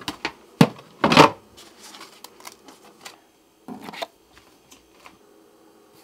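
Clicks and a rattling clatter from a clear plastic storage container of rice being handled. A sharp click comes about half a second in, the loudest rattle about a second in, and another near four seconds. After that there are only a few faint light ticks.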